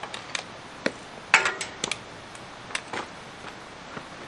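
Irregular light clicks and knocks of small hard objects being handled, about a dozen in all, the loudest a short cluster about a second and a half in.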